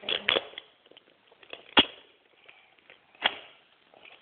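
Gaffer tape being ripped off a cardboard gift box. There is a crackling double tear at the start, then two sharp single rips, one a little under two seconds in and one just over three seconds in.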